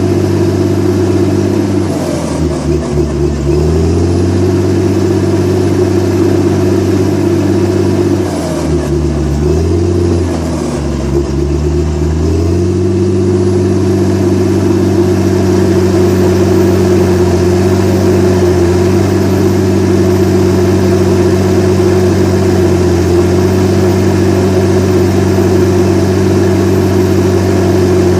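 Komatsu D61EX crawler dozer's diesel engine running hard. Its pitch sags twice, briefly about two seconds in and again from about eight to twelve seconds, then holds steady: the engine pulling down under load as the dozer works material.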